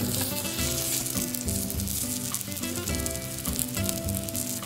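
Hot sandwiches sizzling steadily inside a Snow Peak Tramezzino hot sandwich maker over a gas burner, with soft background music underneath.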